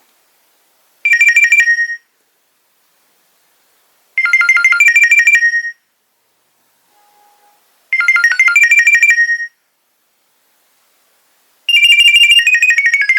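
Nokia 2300 mobile phone ringtone playing: a short phrase of rapid, high, clipped beeping notes, heard three times with pauses of about two seconds between. Near the end a different, longer melody begins.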